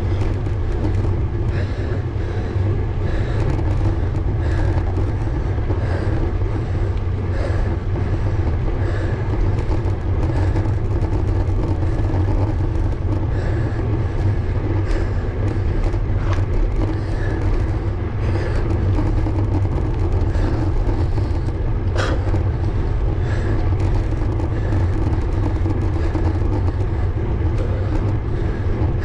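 Steady wind rumble and tyre noise picked up by an action camera on a road bike climbing on tarmac, with a faint sound repeating about every second and a half and one sharp click about three-quarters of the way through.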